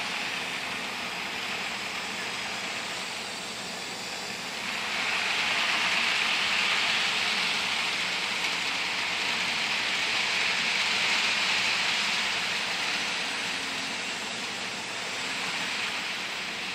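HO scale model freight train, pulled by a Life-Like GP38 locomotive, running on the layout's track: a steady whirring rush of wheels on rails. It grows louder about five seconds in as the cars pass nearest, then eases off near the end.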